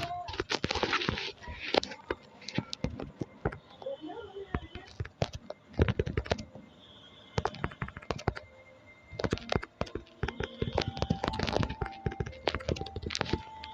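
Rapid, irregular clicks and taps in clusters with a short pause in the middle, like typing on a keyboard.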